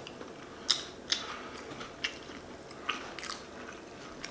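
A person chewing a mouthful of shrimp po' boy sandwich close to the microphone: a series of short, scattered wet mouth clicks and smacks, the sharpest about a second in.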